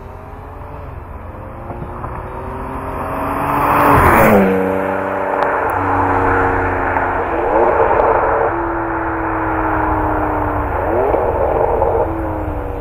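Ferrari 599 GTB Fiorano's 6.0-litre V12 passing close by at speed about four seconds in, its pitch dropping sharply as it goes past. It then pulls away, the revs climbing and dropping back twice through gear changes as it fades.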